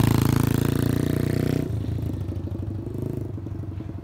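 Apollo X16 125cc four-stroke single-cylinder pit bike engine running as the bike rides away, its note fading steadily. About a second and a half in the engine note drops off sharply and runs on quieter. A nice exhaust note, not very loud.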